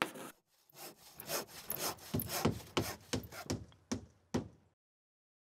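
Outro logo sound effect of quick, irregular scratching strokes, rasping like sawing or sketching. It cuts off suddenly near the end.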